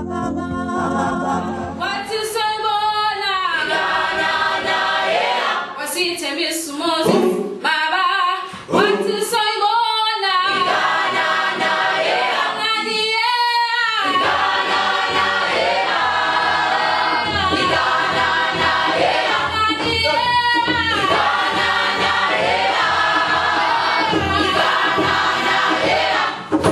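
A youth choir of young men and women singing unaccompanied, in several voices together.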